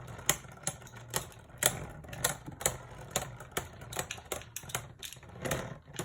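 Two Beyblade spinning tops knocking against each other in a plastic stadium: a quick, uneven run of sharp clacks, about two to three a second.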